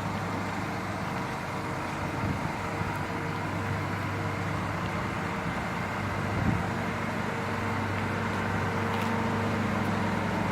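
A steady mechanical hum and rumble that does not change, with one short knock about six and a half seconds in.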